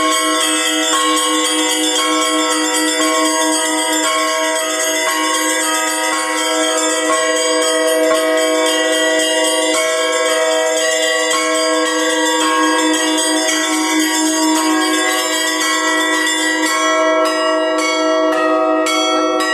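Orthodox church bells ringing the Easter peal: many bells of different pitches struck in a fast, overlapping pattern over a steady low hum. Near the end the small high bells are struck faster and more sharply.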